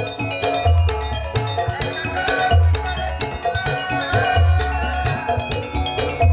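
Instrumental music with percussion and a steady low beat about once a second.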